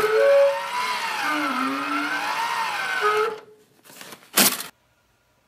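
Title-card sound effect: a dense rushing noise with tones that waver up and down for about three seconds, stopping abruptly, then a single short, sharp hit about four and a half seconds in.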